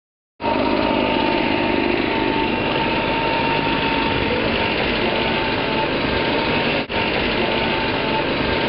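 Small petrol engine of a leaf blower running steadily, with a constant whine over the engine noise. It cuts in abruptly about half a second in and drops out for an instant about seven seconds in.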